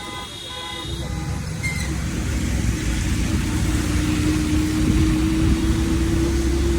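Road traffic: a vehicle horn toots briefly at the start. Then a vehicle's engine and tyre noise build up, with a steady tone held for about five seconds.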